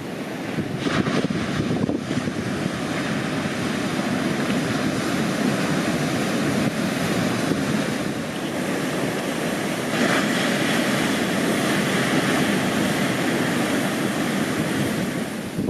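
Atlantic surf: a continuous roar of small waves breaking, swelling louder about ten seconds in as another wave breaks, with some wind on the microphone.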